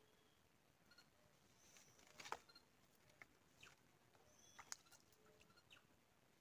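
Near silence: faint outdoor ambience with a few faint bird chirps and two soft clicks, about two and a bit over four and a half seconds in.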